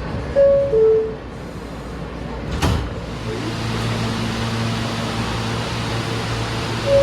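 R160 subway car's door chime: two descending tones, like a 'ding-dong', followed about two seconds later by a sharp thud as the sliding doors shut. A steady low hum then sets in, and the chime's first tone starts again at the very end.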